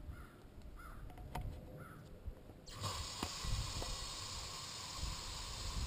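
Aerosol can of bug spray hissing steadily as it is sprayed into the neck of an empty plastic soda bottle, starting a little under three seconds in. Before it, a few faint handling clicks.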